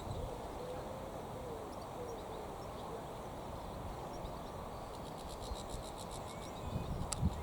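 Outdoor ambience with a steady low rumble of wind on the microphone. A faint low wavering call is heard in the first couple of seconds, and from about five seconds in comes a fast, high-pitched insect-like pulsing of about five pulses a second. A sharp click and a few low knocks come near the end.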